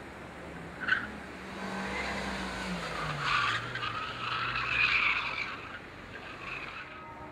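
Opel Corsa OPC's turbocharged four-cylinder engine, its revs falling as it slows into a slalom turn, while the tyres squeal through the corner, loudest about three and five seconds in. A brief sharp squeak about a second in.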